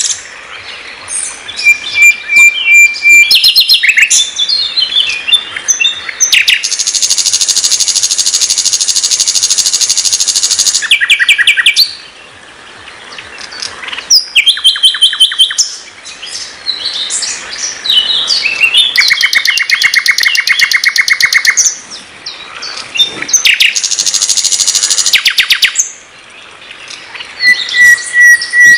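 Common nightingale (sikatan londo) singing a varied song. Phrases of rapid repeated notes and fast trills alternate with held whistled notes, with short pauses between phrases.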